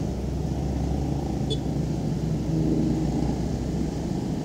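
Steady engine hum and road rumble of a motorcycle being ridden in traffic.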